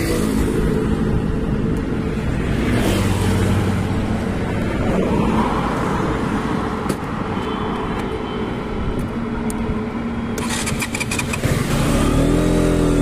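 KTM RC125's single-cylinder four-stroke engine idling steadily, with a quick run of clicks a little after ten seconds in. Near the end the revs rise as the bike pulls away in first gear.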